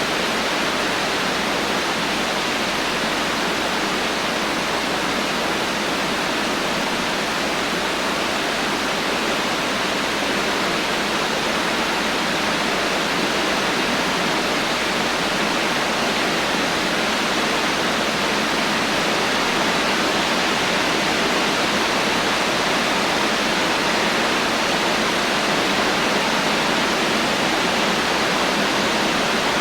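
Heavy rain falling in a steady, even hiss, with no thunder or other sudden sounds.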